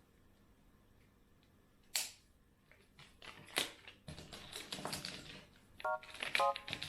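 Objects being handled: a single sharp click about two seconds in, then scattered light taps and rustles. A plucked music melody starts near the end.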